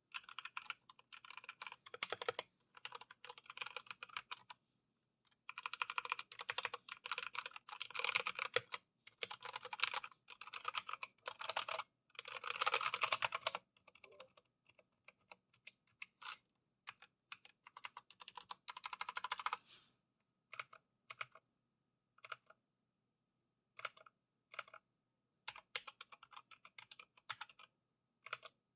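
Redragon K617 Fizz mechanical keyboard being typed on: fast, dense typing in bursts for roughly the first half, then slower single key presses and short groups of keystrokes.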